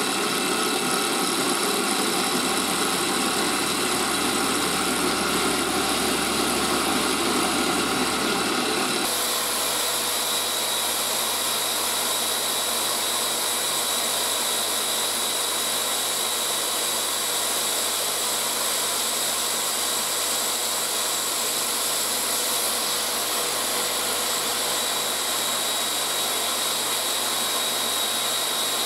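A power-tool motor running steadily; about nine seconds in it gives way abruptly to a different steady motor sound: an electric drill spinning a buffing wheel while a knife blade is polished against it.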